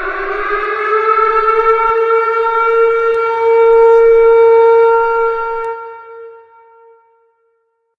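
Civil defense siren sounding an attack warning. Its tone rises to a steady pitch, is held for several seconds, then fades out about six seconds in.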